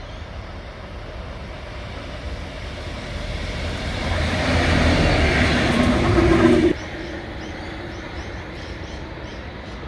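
Pair of Pacific National diesel locomotives approaching and running close by, their engine noise growing louder over a few seconds, then cut off abruptly about seven seconds in. After that a quieter steady hum with faint short chirps.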